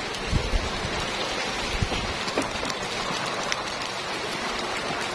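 A mass of small fish thrashing and splashing in a fishing net, a steady pattering hiss of water with scattered small ticks.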